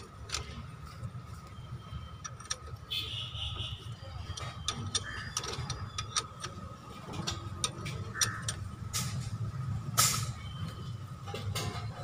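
Steel ring spanner clicking and clinking against a car's front brake caliper bolt as it is worked: a string of short, sharp metallic clicks, with a louder knock about ten seconds in, over a low steady rumble.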